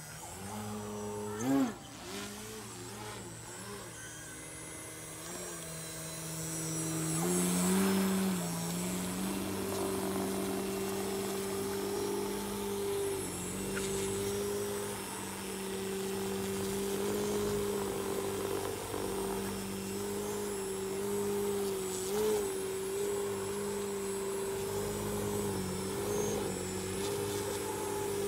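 Propeller and motor of an Ultimate AMR 60 radio-controlled aerobatic biplane, droning on one pitch. The note wavers up and down for the first several seconds as the throttle is worked, then holds steady from about seven seconds in while the plane hangs nose-up on its propeller. A short loud sound comes about a second and a half in.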